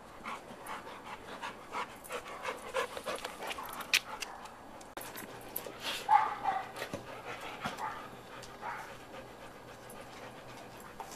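Golden retriever panting hard with its mouth open, in quick irregular breaths that grow quieter in the last few seconds.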